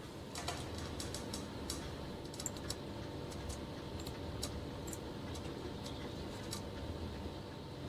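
Faint, irregular small clicks, many in the first few seconds and fewer later, over a steady low hum.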